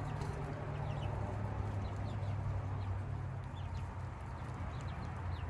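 Half-grown chicks, about six to seven weeks old, peeping and clucking faintly and sporadically over a steady low hum and background hiss.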